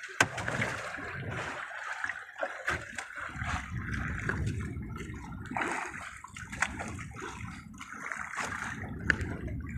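Water sloshing and splashing, with a few small knocks.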